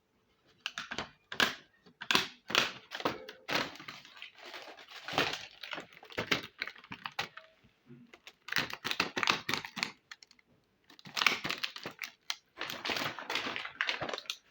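Small plastic toy kitchen pieces being handled: quick runs of light clicking and clattering in several bursts, with short pauses between them.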